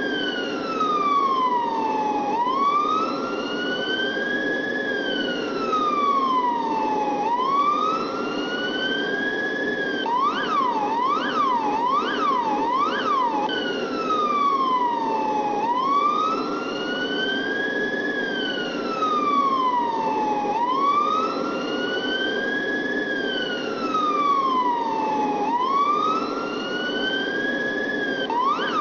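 Electronic police siren wailing, its pitch slowly rising and falling about every five seconds. About ten seconds in it switches for a few seconds to a fast yelp, then goes back to the wail, and the yelp comes again near the end. A steady low hum runs under it.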